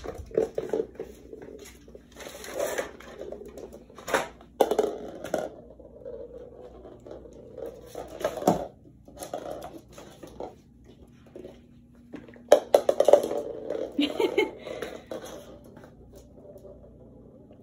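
Hollow plastic ball clattering and knocking as it rolls and is batted across a hard laminate floor, with a Miniature Pinscher puppy's paws skittering after it. The knocks come at irregular moments, with the loudest flurry about twelve and a half seconds in.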